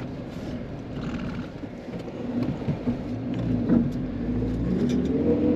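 Vehicle engine running with a low rumble, its pitch rising over the last couple of seconds.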